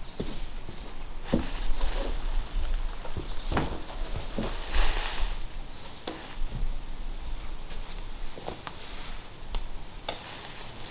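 Woodland ambience with insects trilling steadily at a high pitch, over footsteps and scattered knocks and thuds as a person handles a long wooden pole.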